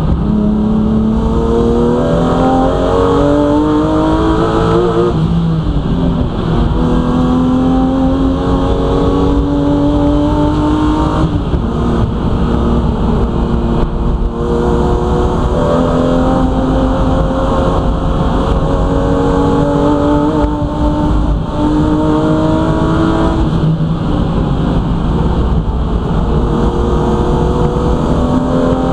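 BMW M3 racing car's engine at full race pace, heard from inside the cabin: its pitch climbs for several seconds, then drops back before climbing again, several times over.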